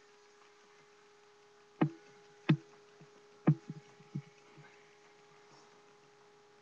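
About five short, sharp knocks in quick succession between roughly two and four seconds in, over a faint steady electrical hum.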